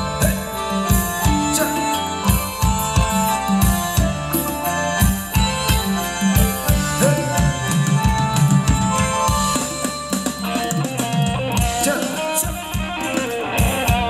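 Thai ramwong dance music played by a band, instrumental with no singing: a steady drum beat of about four strokes a second under bass notes and held melody notes.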